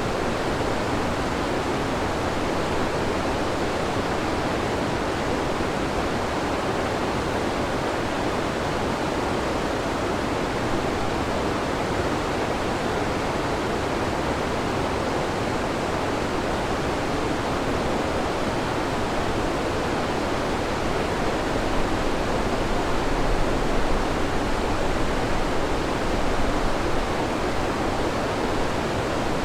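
Steady roar of a large river waterfall, the Chyorny Padun: water crashing down rock in an even, dense rush with no let-up, swelling a little about three quarters of the way through.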